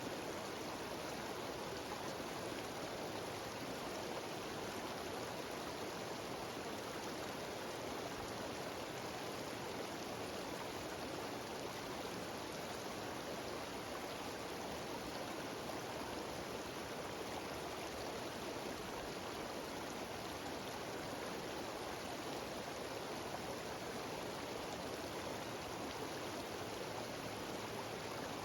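Cascading mountain waterfall running steadily: an even, unbroken wash of water noise.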